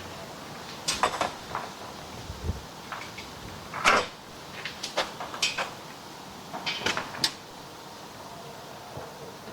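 Light knocks and clicks from a band saw blade and the saw's metal parts being handled, about nine in all at uneven spacing, the loudest about four seconds in.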